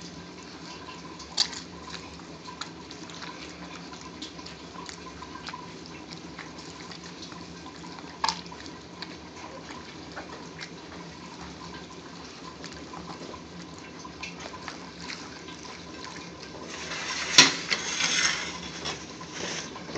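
A gloved hand squeezing and crushing soft grilled tomatoes with onion and garlic in a bowl: quiet wet squishing with scattered small clicks over a faint steady hum. Near the end a sharp knock is followed by a louder spell of squelching.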